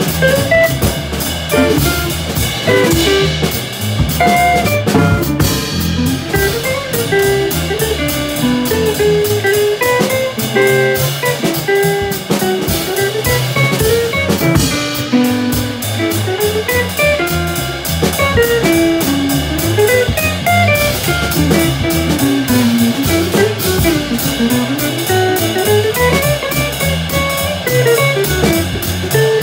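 Live jazz trio of guitar, plucked upright double bass and drum kit playing a tune, the guitar carrying a winding melody over the walking bass and the drummer's cymbals.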